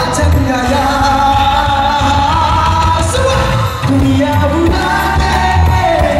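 Live concert performance: a male singer singing held notes with vibrato into a handheld microphone over a live band with bass and drums.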